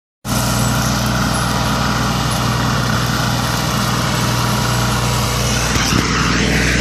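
John Deere utility tractor's diesel engine running steadily under load while it drives a PTO rotary cutter (brush hog) mowing tall grass.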